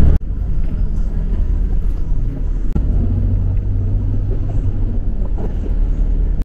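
Steady low rumble of a city bus in motion, heard from inside the passenger cabin.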